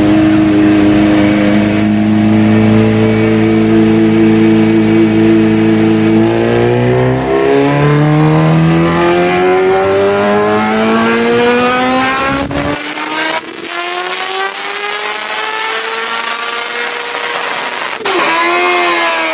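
Supercharged Kawasaki Ninja H2 superbike engine making a full-throttle power run on a chassis dyno. It holds a steady pitch for about six seconds, then climbs in one long rising wail through the revs, and near the end the throttle shuts and the pitch drops away. The run is on a map made deliberately rich for a half-alcohol, half-gasoline fuel mix.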